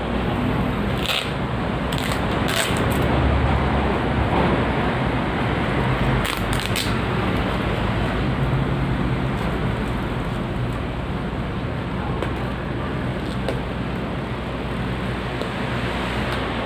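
A steady rushing noise throughout, with a few sharp clicks and crackles in the first seven seconds as the bubble-wrapped parcel and the phone are handled.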